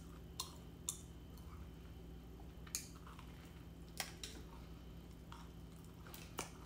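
Quiet close-miked eating: a raisin scone being chewed, with about eight short, sharp mouth clicks and smacks scattered through, over a low steady hum.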